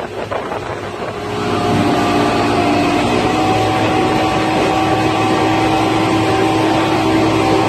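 Motorboat engine getting louder about a second and a half in as the boat speeds up, then holding a steady drone while towing, over rushing wind and water.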